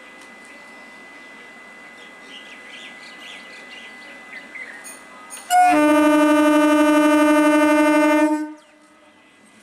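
An Indian EMU passenger train's air horn sounds one long, steady blast of about three seconds, starting about five and a half seconds in. Before it, birds chirp over faint background noise.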